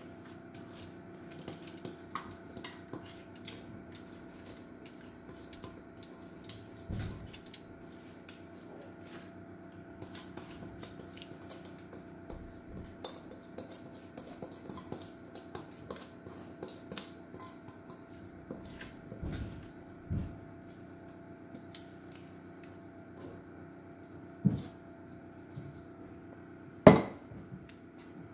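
Metal utensil scraping cake batter out of a stainless steel mixing bowl into a foil-lined baking tray: many light scrapes and clicks, with a few knocks against the bowl and one sharp, loud clank near the end. A faint steady hum runs underneath.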